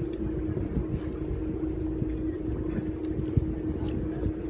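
Tour boat's motor running with a steady hum over a low rumble, with small scattered knocks and one sharper knock about three and a half seconds in.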